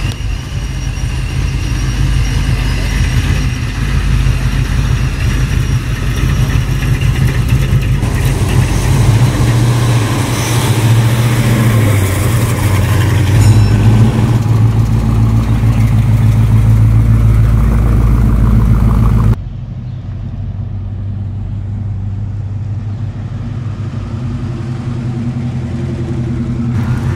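Engines of classic Mopar cars driving slowly past, a loud, steady low engine note with some revving. The sound changes abruptly a few times as one car gives way to the next.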